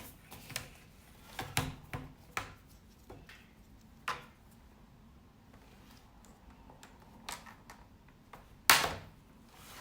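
Plastic opening tool prying at the seam of an Asus FX504 laptop's bottom cover: scattered small clicks and taps as the plastic clips are worked, with one louder click near the end.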